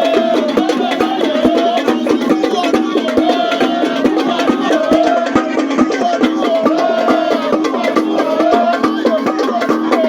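Music with a fast, steady beat of sharp wood-block-like percussion strokes under a melodic phrase that repeats about once a second.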